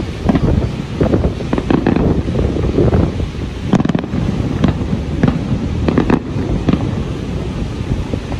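Fireworks shells bursting in the air, many sharp bangs in quick, irregular succession over a steady low rumble.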